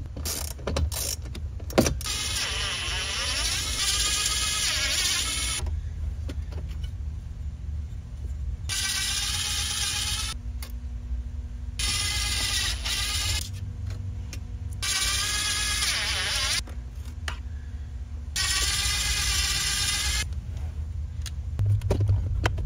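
A cordless drill-driver backs out the 7 mm screws that hold a radio module. Its motor whines in about four runs of a few seconds each, with pauses between them, and the pitch climbs as the first run spins up. A few sharp clicks come in the first couple of seconds.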